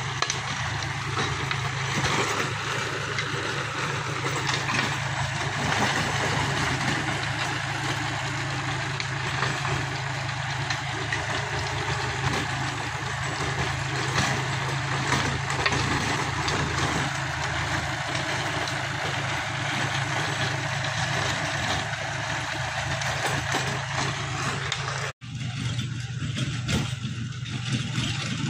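John Deere tractor's diesel engine running steadily under load while pulling a rotary tiller through soil, the engine note mixed with the tiller's churning rattle. The sound cuts out for an instant near the end and comes back duller.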